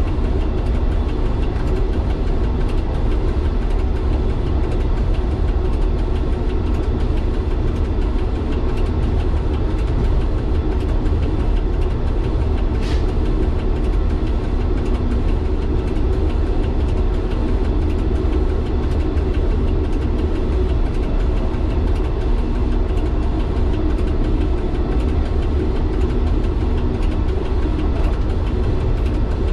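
Diesel engine of an MVTV-2 overhead-line maintenance railcar running steadily, heard inside the driver's cab. A brief high squeak comes about 13 seconds in.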